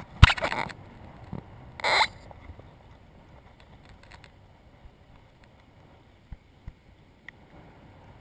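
Handling noise from a small camera being moved and set down on sand: a sharp knock and a rustle right at the start, another short rustle about two seconds in, then faint background with a few soft ticks.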